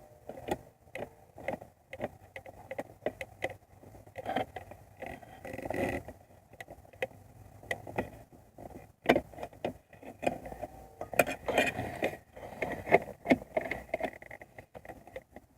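Irregular clicks, clinks and scrapes of hand tools and metal parts being handled and fitted during car repair work.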